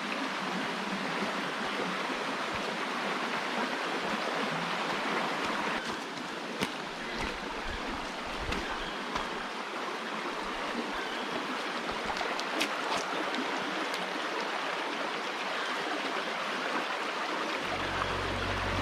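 A jungle river rushing steadily, with a few faint clicks over it.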